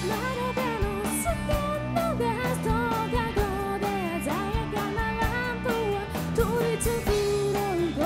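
A live rock band: a woman sings the lead melody over electric guitars, bass guitar and a drum kit keeping a steady beat.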